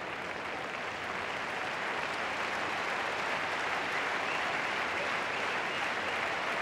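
Arena crowd applauding in a steady dense patter, growing a little louder about two seconds in.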